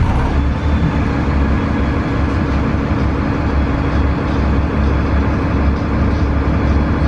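Onboard sound of a 2002 Gillig Advantage transit bus under way: its Cummins ISC diesel engine and Voith 864.3E automatic transmission running with a steady, loud, low drone.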